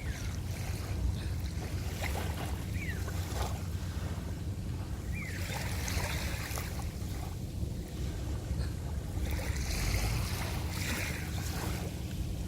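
Boat engine running with a steady low drone while water rushes and splashes, with wind on the microphone; the splashing swells twice, about five seconds in and again near ten seconds.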